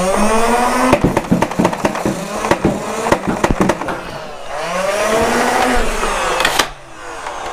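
Nerf Rival Charger MXX-1200's motorized flywheels whirring up in pitch, then a fast string of sharp clacks as foam rounds are fired. The whir winds down, spins up again about four and a half seconds in, and cuts off abruptly near the end.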